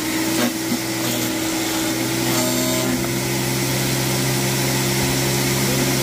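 Zubr garden branch shredder running with a steady motor hum while its blade chews fresh branches fed into it, with a couple of short cracks about half a second in.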